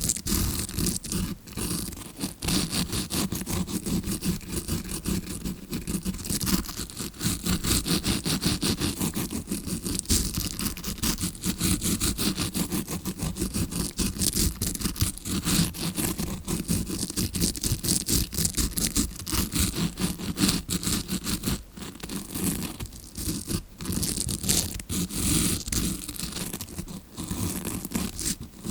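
Tawashi scrubbing brush scratched in rapid strokes close against a microphone, making a continuous dense scratching that imitates ear cleaning heard from inside the ear, with a couple of brief pauses past the middle.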